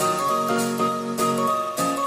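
Background music: an instrumental tune of short, steady notes changing every fraction of a second, with light clicking percussion.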